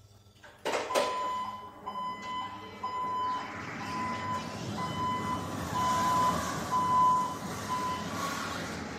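Hyundai 16BRJ battery-electric reach truck moving off with its warning beeper sounding about ten short high beeps over the noise of the truck driving. It starts with a sudden loud clatter about a second in.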